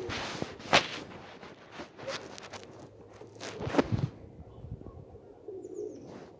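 Several sharp knocks and clatters with rustling in the first four seconds, the loudest about a second in and again near four seconds. After that it is quieter, with faint dove-like cooing near the end.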